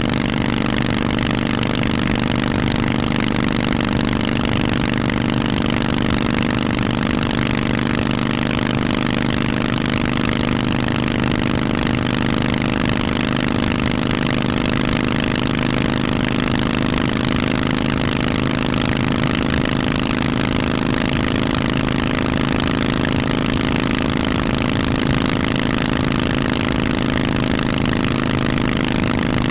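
Harley-Davidson Forty-Eight's air-cooled 1200 cc V-twin running through loud Vance & Hines exhausts. The engine note holds steady at an even pitch, with no revving.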